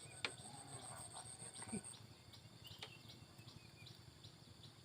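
Near silence: faint outdoor background with a thin high whine that stops about two seconds in, and a couple of soft clicks.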